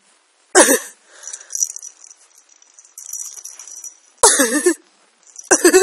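A person laughing in three short, loud bursts: about half a second in, at about four seconds, and near the end.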